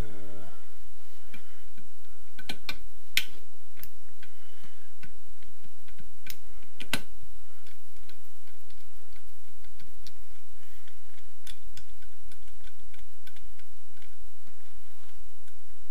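Socket ratchet clicking in short runs as small crankcase bolts are undone, with scattered sharp metal clicks and a few louder clinks in the first half.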